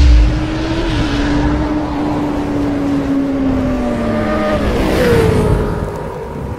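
Motorcycle engine sound effect: a deep hit at the start, then a revving engine note that slowly sags in pitch, a second swell about five seconds in, and a fade at the end.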